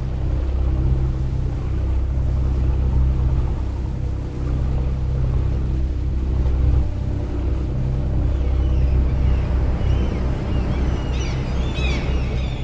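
Boat engine running with a steady low rumble. Near the end, birds call above it in short, high, curving cries.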